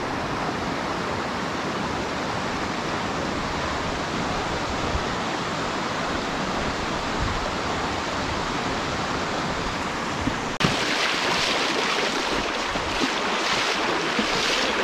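Steady rush of a river or stream. About ten and a half seconds in it cuts abruptly to a brighter, hissier rush of water.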